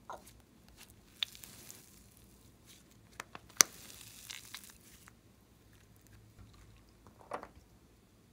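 Pale green fluffy slime squeezed and stretched by hand, with a soft crackling of small air bubbles popping and a few sharp clicks, the loudest about three and a half seconds in.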